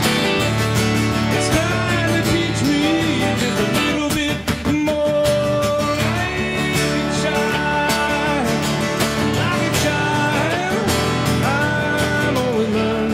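Acoustic guitar strummed with a voice singing a melody over it, holding long notes. The song is played live on one acoustic guitar and one voice.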